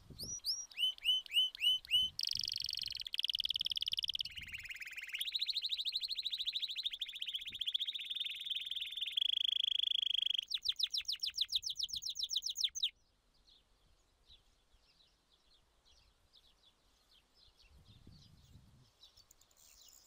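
A songbird singing a varied song. It opens with about five quick down-slurred chirps, then buzzy trills, then a fast run of notes, and stops about 13 seconds in; after that there is near silence.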